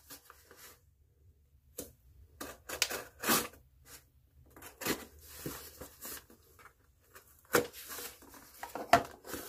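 Cardboard shipping box being cut and torn open: irregular scrapes, tearing and rustling, in short spells with pauses between.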